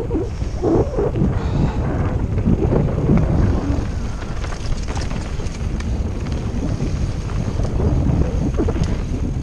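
Wind buffeting the microphone of a rider's camera at speed, over the low rumble of a mountain bike running over rough ground, with scattered short clicks and rattles.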